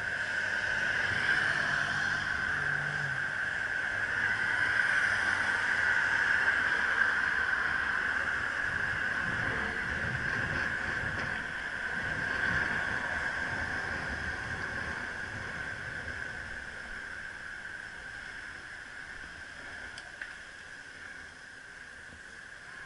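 B Smart electric bicycle riding uphill: a steady whine, likely from its assist motor, over road and wind noise, growing quieter over the last several seconds as it comes up behind queued traffic.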